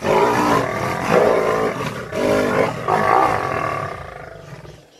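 Lionesses and a leopard snarling and growling at each other in a close-quarters fight, in two long loud bouts with a brief break about two seconds in, dying away near the end.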